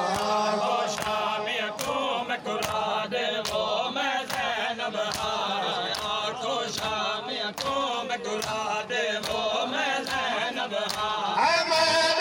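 Crowd of men chanting a noha together, with sharp, regular strokes of hands striking bare chests in matam, about one every 0.8 seconds. The voices swell louder near the end.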